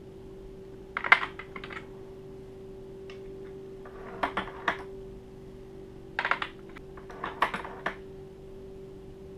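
Powder measure on a reloading press being worked by hand as brass .44 Magnum cases are charged with powder: short clusters of clicks and clacks, four times, as each case meets the measure and goes back into a plastic loading block, over a steady faint hum.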